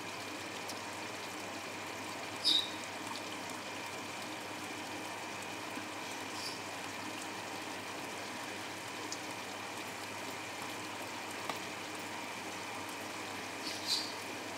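Chicken masala simmering in a large aluminium biryani pot over a gas burner: a steady, soft hiss. Two brief sharp clinks sound, one about two and a half seconds in and one near the end.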